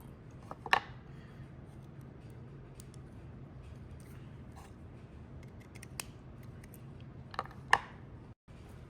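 A few sharp small clicks and snips from a hand tool working the front wheels off a small die-cast toy car, the loudest near the end.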